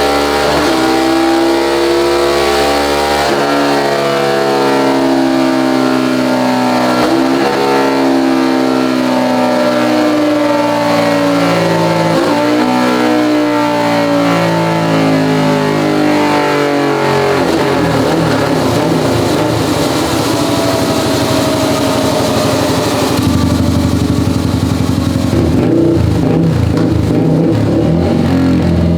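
Small motorcycle engine breathing through an EvoX aftermarket exhaust, revving on a dyno roller. Its pitch climbs again and again, broken by shifts every few seconds. About 17 s in it drops off throttle into a rough, choppy note, and it settles lower near the end.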